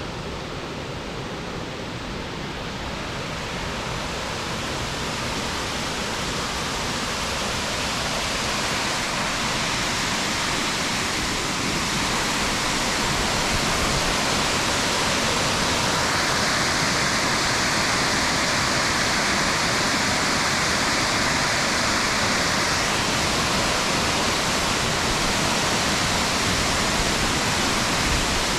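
Rain-swollen slide waterfall: a steady, heavy rush of falling water that grows gradually louder over the first dozen seconds, then holds.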